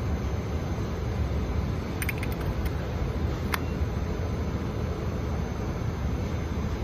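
Steady low outdoor rumble, with a few light clicks about two seconds in and one sharper click a little later, as the metal gas cap is handled.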